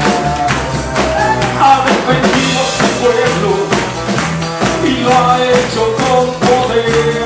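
Live church band playing an upbeat praise song with bass and drums under a melody line and a steady beat, in the gap between sung lines.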